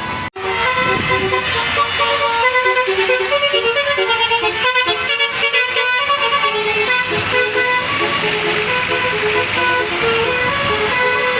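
Bus 'telolet' basuri horn playing a melody: a run of loud, pitched horn notes that change several times a second. The sound drops out for an instant just after the start.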